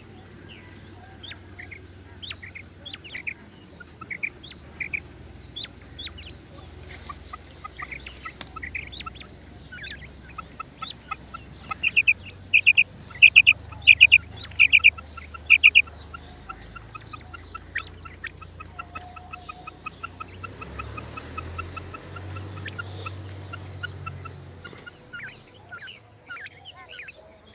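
Female quail calling: short, high, rising notes in twos and threes, with a loud rapid run of about eight notes around the middle, followed by a long fast series of soft ticking notes.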